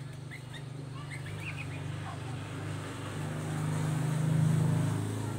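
Low engine hum of a nearby motor vehicle, swelling to its loudest about four seconds in and then easing off, with a few short bird chirps in the first second or two.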